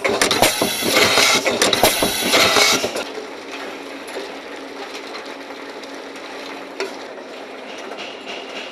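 Aerosol filling line machinery running, with loud metallic clattering and clicking of aerosol cans moving through the machine for about three seconds. It then gives way to a quieter, steady machine hum with an occasional click.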